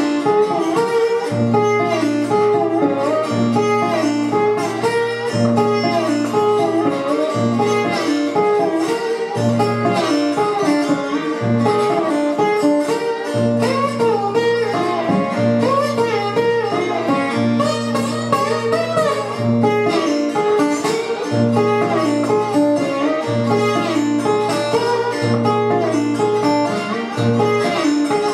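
Solo acoustic guitar, plucked, in a blues instrumental break: a repeating low bass figure under a busy single-note melody.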